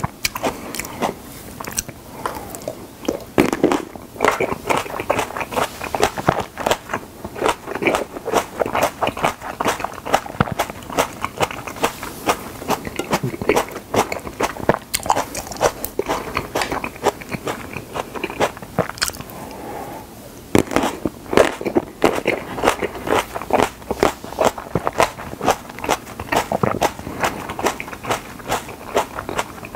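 Close-up chewing and biting of whole cherry tomatoes: a steady run of wet mouth clicks and smacks as the skins are bitten through and the flesh is chewed, with a short lull about two-thirds of the way in.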